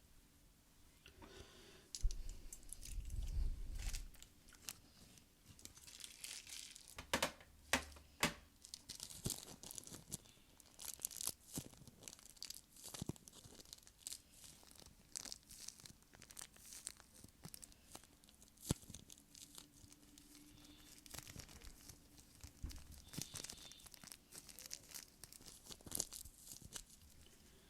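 Close-miked tearing and crinkling, a dense run of sharp crackles and clicks, loudest for a couple of seconds near the start.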